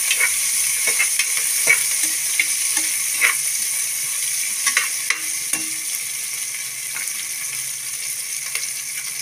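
Sliced onions and a green chilli sizzling steadily in sesame oil in an aluminium pressure cooker while being stirred, with scattered scrapes and clicks of the utensil against the pot, most of them in the first six seconds.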